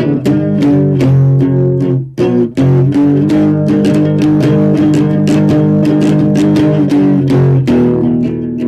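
Music with plucked guitar over bass, with a steady beat.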